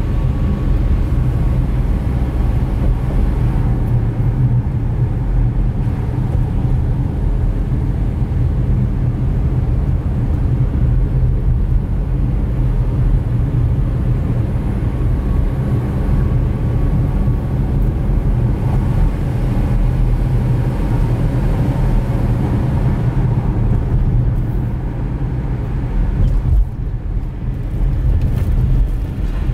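A car driving, its engine and tyres making a steady low rumble as picked up by a dashcam inside the cabin.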